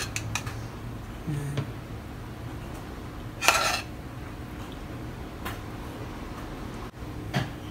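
A spoon scraping and clinking against a saucepan while white sauce is spooned out: a few light clinks, with one louder scrape about three and a half seconds in, over a faint steady low hum.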